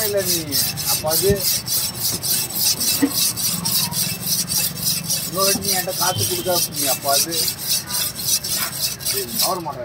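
A large steel fish-cutting knife sharpened on a flat sharpening stone: the blade is stroked back and forth in quick, even strokes, several a second, each a rasping scrape of steel on stone.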